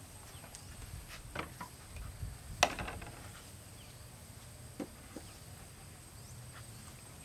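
A few light knocks and clinks of a pot being handled and set down on a clay stove; the sharpest knock comes a little over two seconds in, and two softer ones come near five seconds. Under them runs a faint steady high drone of insects.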